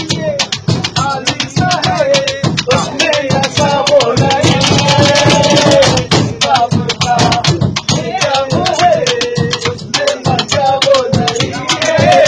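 Commuters singing a song while beating out a fast rhythm with their palms on the metal walls and luggage rack of a local train coach. Hand slaps carry the beat under one wavering sung melody.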